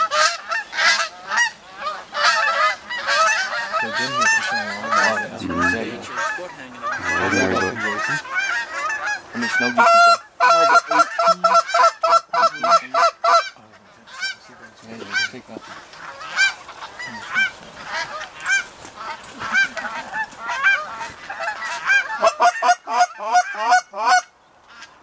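A flock of geese honking, many calls overlapping, with a fast, even run of honks about ten seconds in.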